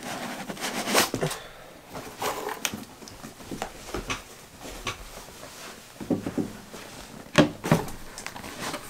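Leather hiking boots being handled and turned over: scattered rustles, light knocks and clicks, with a cluster of louder knocks about seven and a half seconds in.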